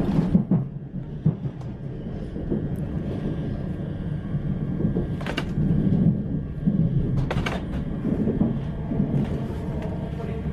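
Class 387 electric train running at speed, heard from inside the carriage: a steady low rumble of wheels on rail, with a few sharp clicks about five and seven seconds in.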